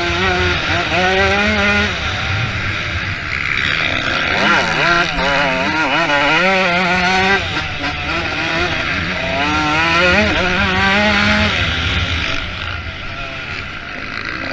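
Motocross motorcycle engines racing at full throttle. Their pitch rises and falls over and over as the riders open and close the throttle and shift gears, with more than one bike heard at once.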